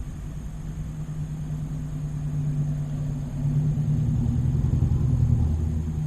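An engine running with a steady low hum that grows louder, its pitch stepping down near the end.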